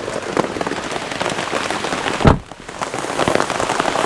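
Rain falling, with many heavy drops pattering close by. One dull thump comes a little over two seconds in, followed by a brief lull.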